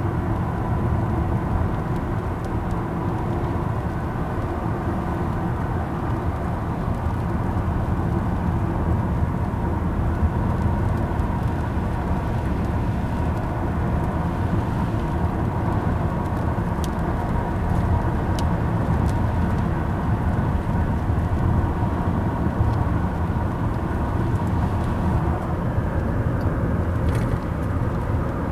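Car driving on the road, heard from inside the cabin: a steady low rumble of tyres and engine with a faint steady whine.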